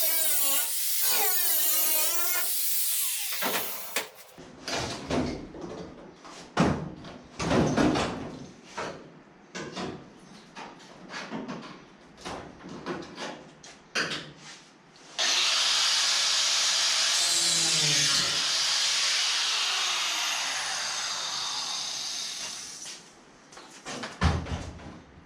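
Shop tools working the sheet-metal body of a car while its quarter panel is being cut and forced off. A power tool whines with a wavering pitch for the first few seconds, then comes a long string of sharp metal knocks and clanks. About fifteen seconds in, a tool gives a steady high hiss for roughly eight seconds, and there is a last knock near the end.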